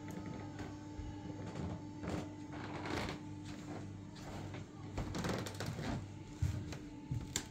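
A steady low hum of a room, with irregular soft knocks and shuffles from someone walking across old wooden parquet floors and a few sharper thumps near the end.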